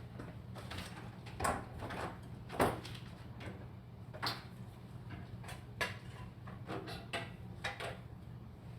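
Irregular clicks, knocks and scrapes of small objects being handled and moved about on a workbench, over a steady low hum.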